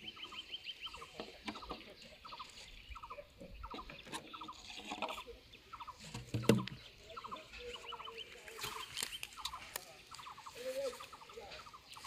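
Short trilled animal calls repeating steadily, about two a second, with one dull thump about six and a half seconds in.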